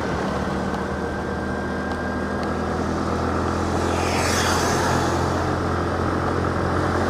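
A moving road vehicle's steady low engine and road drone. About four seconds in, a rushing swish swells and fades, like another vehicle passing close by.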